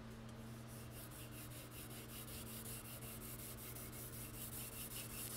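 Faint back-and-forth scrubbing of a low-aggression Scotch-Brite pad on a wooden rifle stock, in quick even strokes several times a second, with a steady low hum under it. The pad is taking the fire-damaged top layer of varnish off the Krag-Jørgensen stock.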